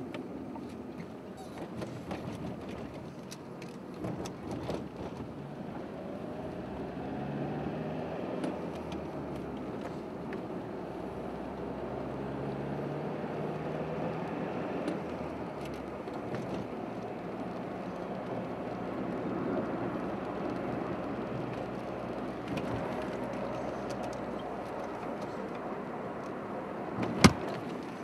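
Car engine and road noise heard from inside a moving car, steady throughout, with one sharp click near the end.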